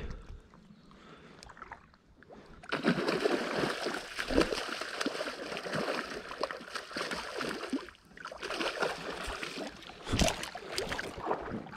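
Water splashing and sloshing in irregular bursts from a hooked trout fighting at the surface, starting about three seconds in, easing briefly and then starting again.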